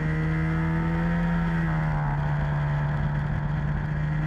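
Racing kart engine running at high revs on a straight, heard from the onboard camera. Its pitch climbs slightly, then eases back a little about two seconds in.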